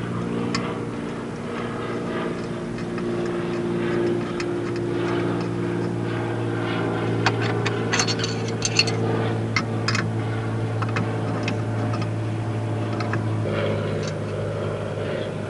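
Steady low mechanical hum, like an engine running, with a cluster of light sharp clicks about halfway through.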